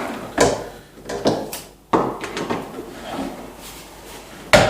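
Plastic parts of a Bosch T40 coffee machine being handled and fitted into place, giving several sharp clicks and knocks with rustling between them.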